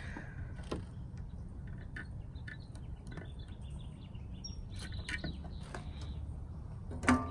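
Small clicks and taps of plastic wire connectors and a reverse-light housing being handled and pressed together, over a steady low outdoor rumble, with one sharper click near the end.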